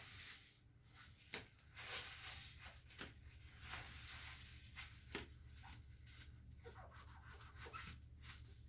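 Faint scrubbing and rubbing of a cleaning task, with scattered light clicks and a brief high squeak near the end.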